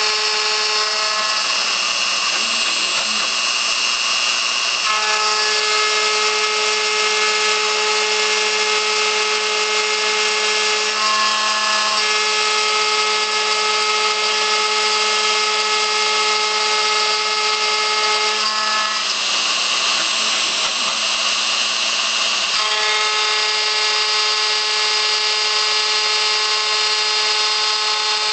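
ShopBot CNC router with a 1/8-inch carbide end mill cutting steel plate: the variable-speed router, at setting 3 of 6, whines steadily over the harsh noise of the cut. Twice, about two seconds in and again about nineteen seconds in, the whine fades for a few seconds and a higher, harsher cutting noise takes over.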